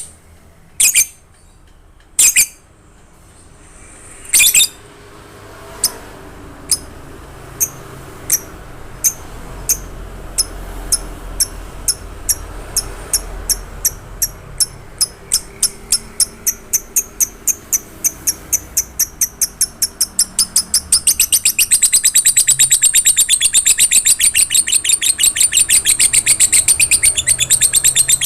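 Lovebird singing: a few loud single shrieks, then high chirps that repeat faster and faster until, about three-quarters of the way through, they run together into a long, rapid chattering trill, the sustained 'ngekek' of a lovebird in full song.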